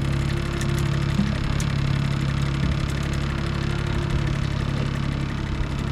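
Boat motor running steadily at low trolling speed, an even low hum.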